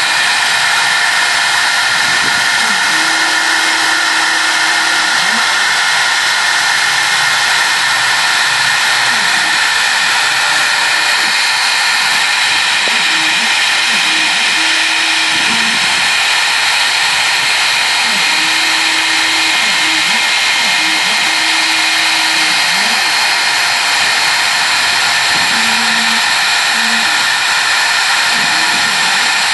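CNC router spindle running at high speed while its small bit mills isolation tracks into a copper-clad PCB blank, a steady high-pitched whine with cutting noise. Lower steady notes from the stepper motors come and go as the axes move the bit along the tracks.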